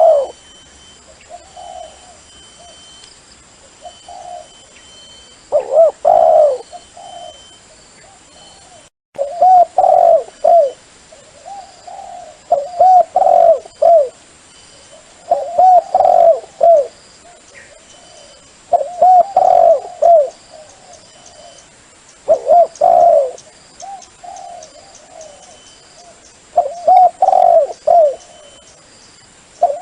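Dove cooing: phrases of several short, rounded coos, repeated about every three seconds. It is a call used to lure wild doves.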